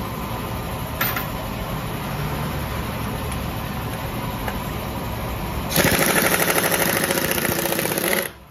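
Pneumatic impact wrench hammering on a scooter's rear axle nut: a loud, rapid rattling burst of about two and a half seconds that starts near the middle and cuts off suddenly. Before it there is a steady background hum and a single click.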